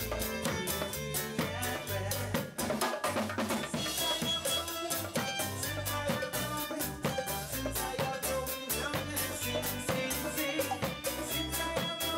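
Caymanian kitchen band music: a small band with electric violin, guitar and drum kit playing with a steady, quick beat.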